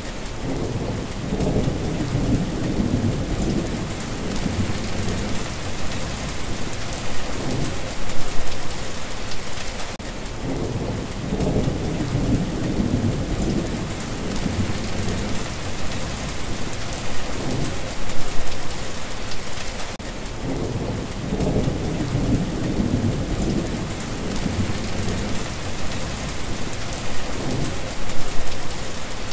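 Steady heavy rain hissing, with thunder rumbling in low, rolling swells that recur about every ten seconds.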